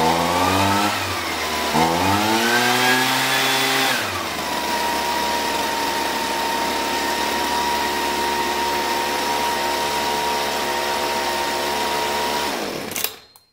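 Husqvarna 125B leaf blower's small two-stroke engine, its carburetor freshly rebuilt with the L and H jets set a quarter turn out, revving up and dropping back twice, then running steadily before it stops near the end.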